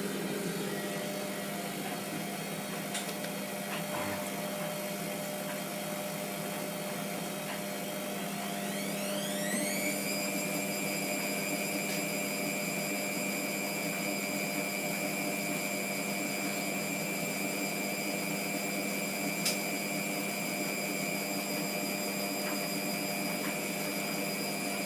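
Hotpoint Aquarius WMF720P washing machine running with a steady hum, then its motor whine rising as the drum speeds up into a spin about nine seconds in and holding a high steady whine. The whine begins to fall near the end as the spin winds down. The drum is still full of suds from too much detergent.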